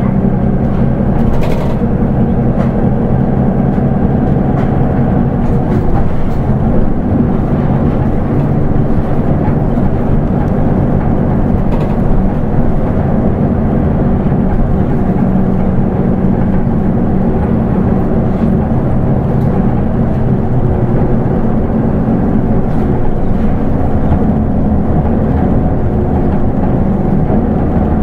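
Onboard running sound of a Nissan Diesel Space Runner RA manual-transmission city bus: its diesel engine drones steadily over road noise, with a couple of brief clicks.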